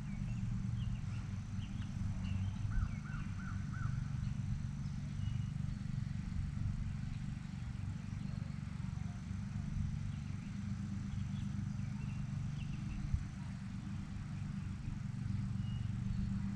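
Outdoor ambience by a pond: a steady low hum throughout, with scattered faint bird chirps and a quick run of about five bird notes a few seconds in.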